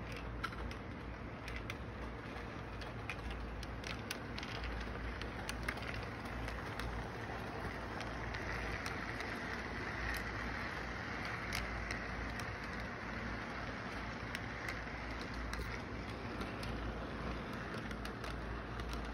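Electric model train running on its track: a steady rolling rumble with scattered sharp clicks, getting a little louder around the middle as the freight cars pass close by.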